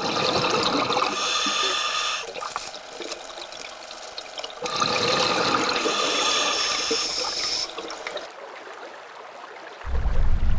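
Scuba diver breathing through a regulator underwater: two long rushes of exhaled bubbles, each two to three seconds, with a quieter breath in between. A low rumble starts near the end.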